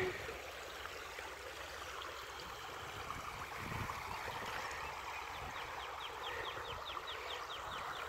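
Creek water running steadily through a concrete low-water crossing's spillway. Just past the middle, a bird gives a rapid run of high chirps, about four a second, until near the end.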